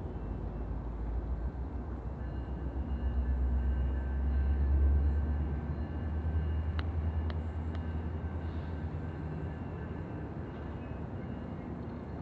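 GO Train diesel locomotive engine running with a deep rumble that swells to its loudest about five seconds in, then eases off. A few sharp clicks sound about seven seconds in.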